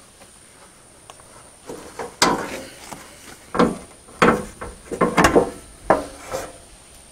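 Side engine panel of a Mahindra 5555 tractor being worked loose and pulled off by hand: a series of sharp knocks and rattles, the first about two seconds in and several in quick succession between about four and six and a half seconds.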